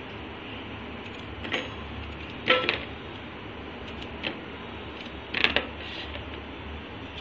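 A handful of short, sharp clinks against a stainless-steel bowl as a peeled potato is cut up by hand with a knife over it; the loudest, with a brief ring, comes about two and a half seconds in. A steady low hum runs underneath.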